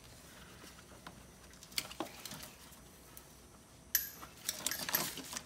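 Small plastic and metal clicks from parts of a removed truck steering column being pried and handled with hand tools. A couple of sharp clicks come about two seconds in, then a run of clattering and scraping starts near the end.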